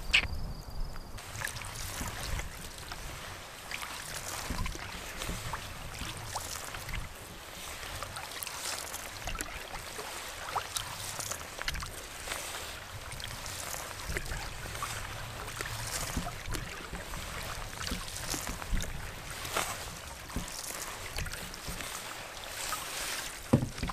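Canoe paddle strokes dipping and splashing in the water at an irregular pace, with wind rumbling on the microphone.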